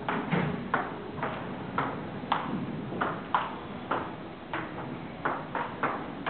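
Table tennis rally: the celluloid ball clicks sharply off the paddles and the table in a steady alternating rhythm, about two to three clicks a second.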